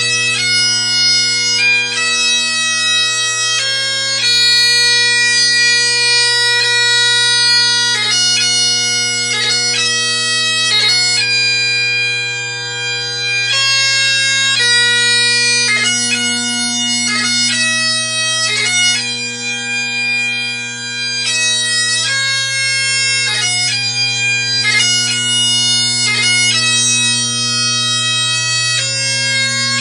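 Great Highland bagpipe playing a tune: the drones sound one steady low note under the chanter's stepping melody, without a break.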